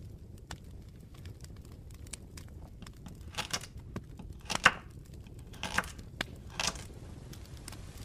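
Campfire crackling, with sparse small pops and snaps. In the middle come four brief rustling, crinkling noises about a second apart, like dry bamboo being handled and fed to the fire.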